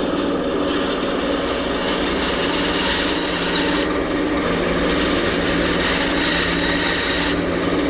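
A motorized abrading tool working a wooden lure body: a steady motor hum under a continuous rasping grind, the higher hiss dropping off for a few seconds midway and coming back.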